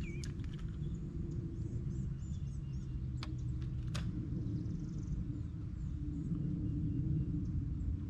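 Outdoor lake ambience: a steady low rumble, with faint bird chirps and a few sharp clicks.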